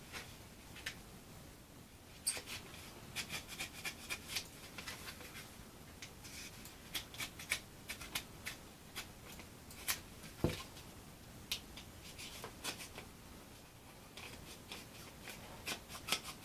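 Small hinges and hand tools being handled on a workbench: scattered light clicks, taps and rustling, coming in short bursts, with one louder knock about ten seconds in.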